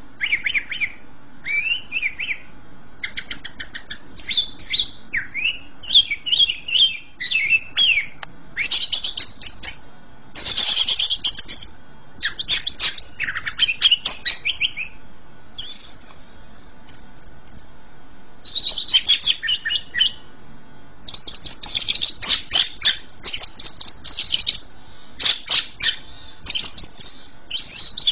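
Greater green leafbird (cucak ijo) singing continuously: a loud, varied song of rapid chirps, trills and whistled phrases, with a short pause in the middle.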